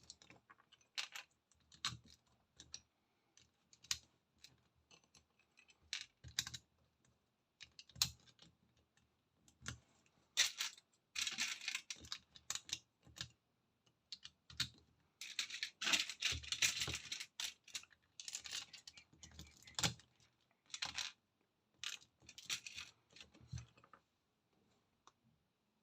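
LEGO pieces clicking and clattering during building, with scattered single clicks and two longer stretches of rattling as loose plastic parts are handled.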